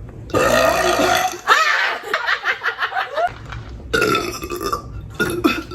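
A person burping several times in a row: loud, drawn-out burps, the middle one breaking into a quick stuttering run.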